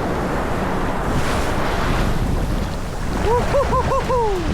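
Heavy wind buffeting the microphone over rushing water, as on a jet ski moving at speed. Near the end, a quick run of five short rising-and-falling pitched calls.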